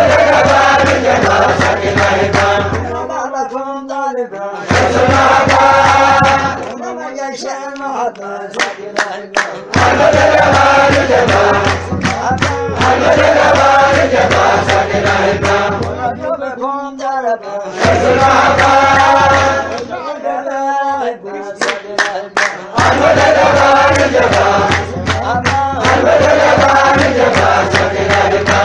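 Menzuma, an Ethiopian Muslim devotional chant, sung by male voices with a steady low drone underneath that drops out several times. Sharp percussive strikes punctuate the singing.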